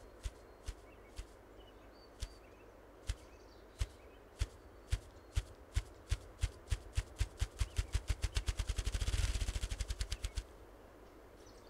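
Ruffed grouse drumming, its courtship display: deep wing-beat thumps, slow and widely spaced at first, speeding up steadily into a rapid whir, then stopping abruptly a little over ten seconds in.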